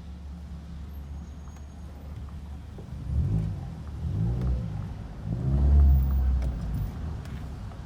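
Toyota IST's engine heard from inside the cabin while driving: a steady low hum, then about three seconds in it revs up and drops back three times, the last one the loudest.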